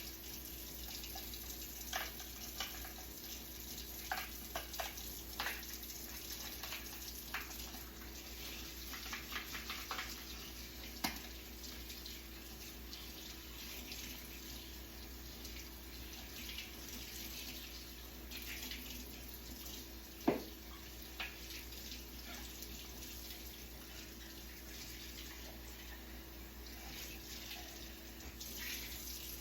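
Water running from a sink tap as juicer parts are washed, with occasional light clicks and knocks of the parts being handled; the sharpest knocks come about 11 and 20 seconds in.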